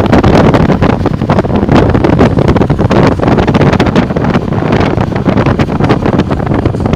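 Wind buffeting the microphone: a loud, rough rushing with constant crackle and uneven gusts.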